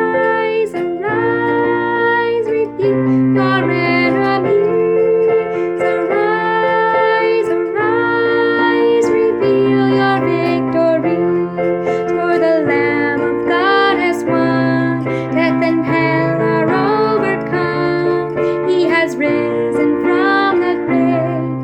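Worship song music: sustained melody notes over keyboard chords and a bass line that moves every second or two.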